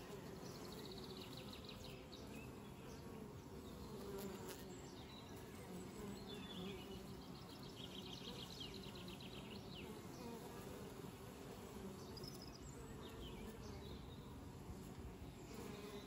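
Honeybees buzzing at the entrance of their hive: a faint, steady hum of many bees flying in and out.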